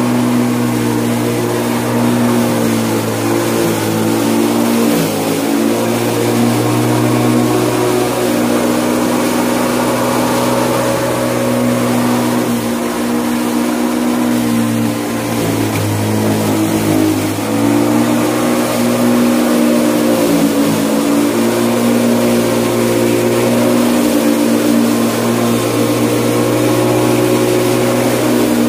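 WOLF-Garten A340E corded electric rotary lawnmower running while cutting grass: a steady motor whine that sags briefly in pitch a few times as the blade takes load.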